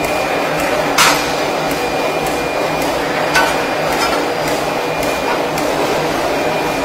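Forge-shop machinery running with a steady hum and hiss while hot steel is pressed in a die, broken by a few sharp metallic knocks, the loudest about a second in.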